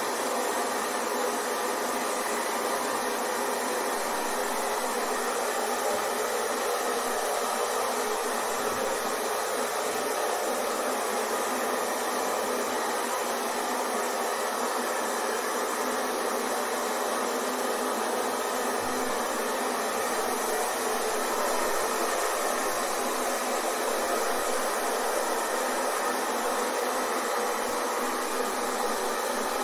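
Hair dryer running continuously: a steady, unchanging whoosh of blowing air and motor hum, used as white noise to lull a baby to sleep.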